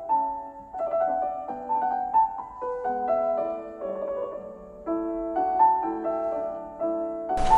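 Background music: a gentle solo piano melody of single sustained notes.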